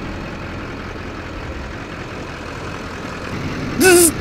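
Pickup truck engine idling steadily, with a short loud hiss carrying a tone near the end.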